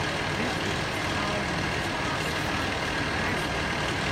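Fire truck engine idling steadily, a constant low hum with no change in speed.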